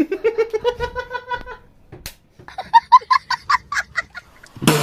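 Laughter: a quick run of evenly spaced 'ha-ha' pulses, then a second, higher-pitched run of laughing. Near the end a loud rush of noise starts suddenly.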